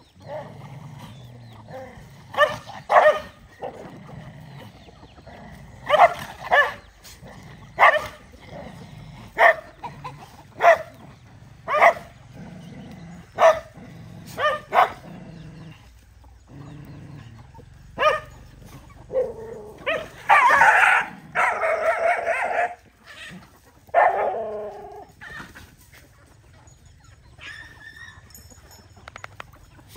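Several dogs barking and yipping in short, sharp outbursts as they squabble over a shared food bowl, with a longer, denser spell of yelping around two-thirds of the way through.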